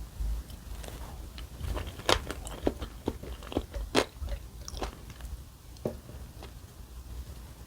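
Close-miked eating: bites and chewing, with a run of sharp crunchy clicks from about a second and a half to five seconds in and one more near six seconds.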